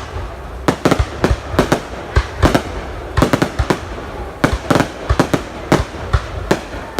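Aerial fireworks shells bursting high overhead: a rapid, irregular string of sharp bangs and cracks, several a second, over a low rumble, with brief lulls near the start and about four seconds in.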